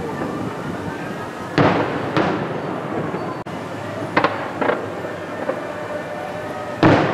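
Aerial firework shells bursting: about five booms a second or two apart, the loudest about a second and a half in and near the end, each trailing off, over a steady background rumble.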